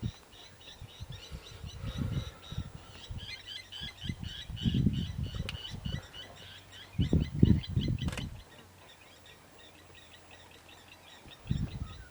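Lapwings giving rapid, repeated sharp alarm calls at an eagle feeding on their chick. Several loud low rumbles come and go over the calls, with one sharp click about eight seconds in.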